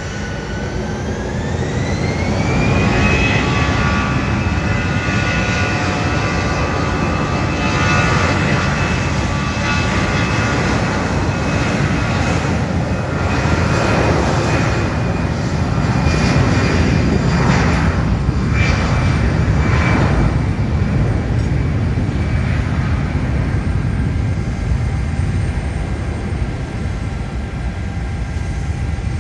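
Jet airliner engines spooling up: a whine rises in pitch over the first few seconds, then holds steady over a loud, continuous rumble.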